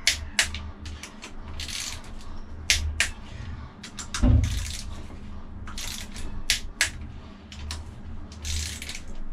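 Scattered sharp metallic clicks and taps with brief rustling, from bolts and hand tools being worked at a Kubota V2003 diesel's rear crankshaft oil seal carrier; one dull thump about four seconds in.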